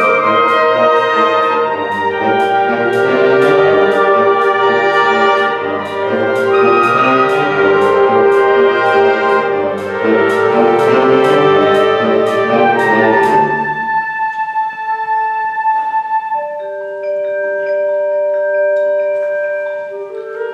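High school wind ensemble playing a concert piece: full band with brass and regular percussion strokes, about two or three a second. About fourteen seconds in it thins to a few soft held notes.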